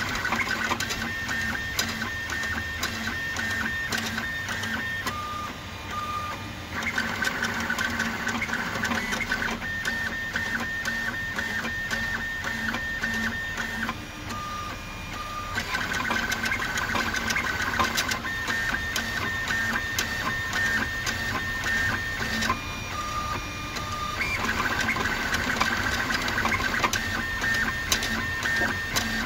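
Home-built ball-screw 3D printer running a print: its stepper motors whine as the print head moves. The whine switches between a few steady pitches in a pattern that repeats about every eight seconds, over fine ticking.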